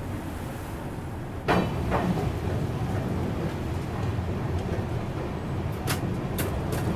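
Low rumble of an Indian Railways passenger train coach on a steel truss bridge. A sudden loud clank comes about a second and a half in, a weaker one half a second after it, and three sharp clicks near the end.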